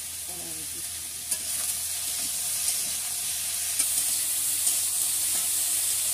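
Food sizzling in hot oil in a metal frying pan over a fire while a spatula stirs it. A few sharp scrapes and knocks of the spatula on the pan sound over the steady sizzle, which grows louder about a second in.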